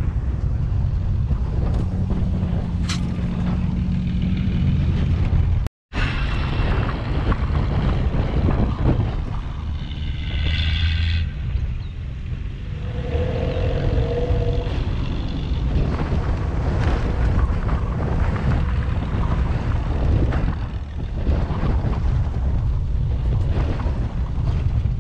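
Wind rushing over a camera mounted on the bonnet of a Toyota FJ Cruiser driving off-road, with the vehicle's engine and tyres rumbling low underneath. The sound cuts out completely for an instant about six seconds in.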